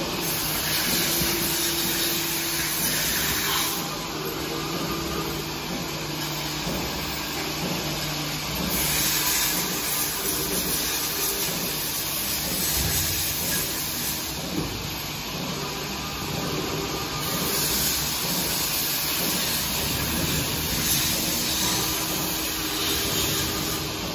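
Automatic weighing filling machine and its conveyor line running: a steady machine hum, with hissing that comes and goes in three stretches of several seconds each.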